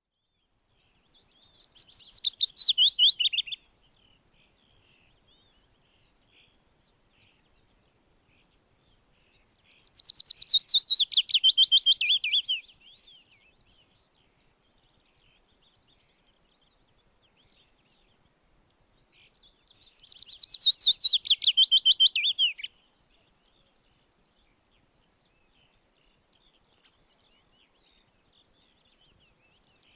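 Songbird singing a fast trill of rapid chirps that falls in pitch over about three seconds. The phrase comes three times, roughly ten seconds apart, with faint chirps in between.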